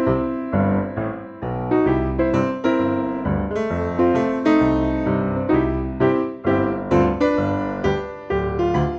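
Background music: an upbeat piano tune with a bouncy rhythm, struck notes about two to three a second.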